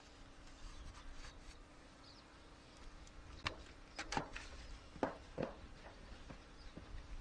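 Honey bees humming faintly and steadily around an open hive, with a handful of light wooden knocks about halfway through as the hive boxes are fitted back together.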